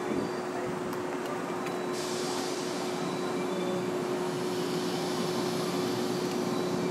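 Steady electric hum of trains at a station, one even tone under a general rumble, with a hiss that comes in about two seconds in and holds.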